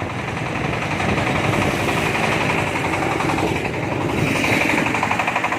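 Engine-driven corn sheller machine running, with a steady, fast-beating mechanical clatter. The sound shifts in tone about three and a half seconds in.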